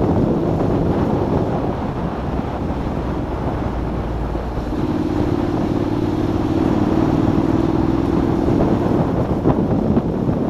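Honda NC750X motorcycle riding along, its parallel-twin engine running steadily under the rush of wind and road noise. About halfway through, a steady engine hum comes up clearer for a few seconds, then sinks back into the noise.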